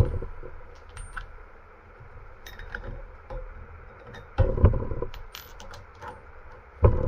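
Chrome sockets clinking as they are taken off a metal socket rail and tried on a ratchet, with a few louder knocks of tools on the workbench about four and a half seconds in and near the end.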